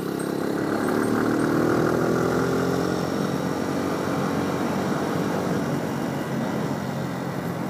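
Small sport motorcycle's engine pulling away under throttle, getting louder over the first second or two, then running on at a fairly steady pitch while cruising, with wind noise on the helmet-mounted microphone.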